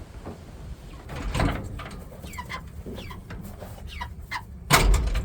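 Young Cornish Cross meat chicks peeping over and over, each peep a short falling note. Two louder scuffling noises cut in, one about a second and a half in and the loudest near the end.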